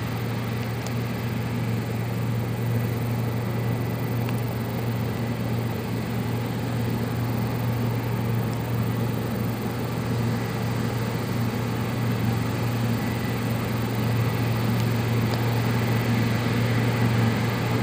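Steady engine drone of a New Holland CX8.70 combine harvester working a wheat field, with a New Holland T7050 tractor running alongside while grain is unloaded on the go.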